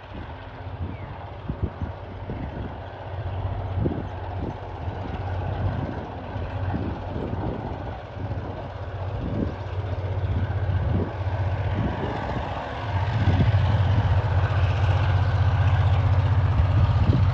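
TasRail TR class diesel locomotive hauling a log train, heard approaching before it comes into view: a low, steady engine drone that grows louder, stepping up markedly about thirteen seconds in.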